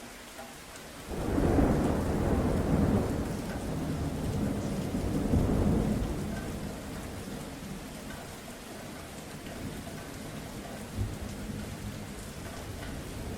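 Thunder rolling over steady rain: a loud low rumble breaks about a second in, swells again around five seconds and dies away, leaving the rain falling.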